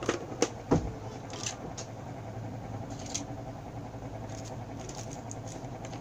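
Several sharp clicks or taps in the first second and a half and one faint one about three seconds in, over a steady low background hum.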